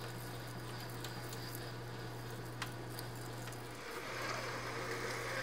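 Metal lathe running with a steady low hum while a cast iron part is drilled and bored out, with a few sharp clicks. About four seconds in, a louder hiss of the tool cutting comes in.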